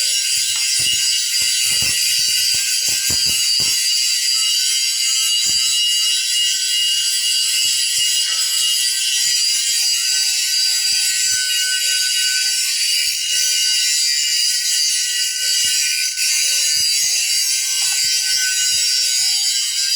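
Stick (SMAW) welding arc on a pipe joint, a steady high crackling hiss, with a few low knocks in the first few seconds.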